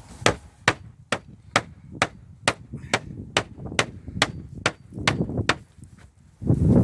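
Hammer rapping steadily at a broken roof slate to knock it loose, about thirteen sharp blows at just over two a second that stop after five and a half seconds. A louder, rougher noise starts near the end.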